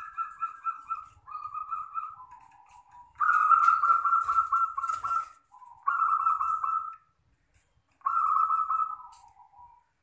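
Zebra dove (perkutut) cooing: about five phrases of rapid, soft, fluttering coos, some phrases dropping to a lower closing note.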